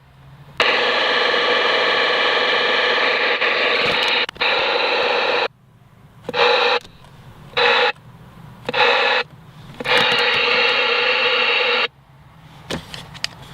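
Newly installed CB radio's speaker hissing static in bursts that cut in and out abruptly: a long stretch at first, several short bursts in the middle, and another long stretch near the end.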